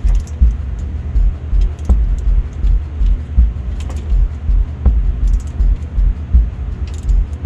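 Torque wrench clicking now and then, a sharp click about once a second, as intake manifold bolts are brought to a first torque of 36 inch-pounds. A loud, pulsing low rumble underlies it throughout.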